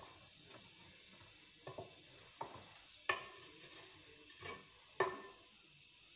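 A few faint knocks and clinks over quiet room tone, with two sharper clinks that ring briefly, about three and five seconds in.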